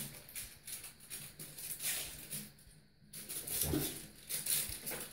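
Crinkle ball crackling and rustling in a bathtub as a kitten bats and chases it, in irregular spurts with a short lull about three seconds in.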